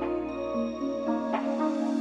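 Background music: a soft new-age style track of sustained tones with notes changing.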